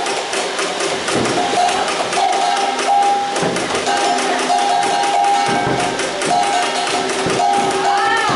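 Nerf Rival Nemesis blaster firing in long full-auto bursts: a steady flywheel motor whine that stops and starts, over a rapid clatter of foam balls feeding and striking.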